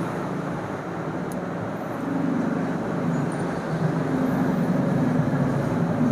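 A vehicle engine drones with steady street-traffic noise, getting louder about two seconds in.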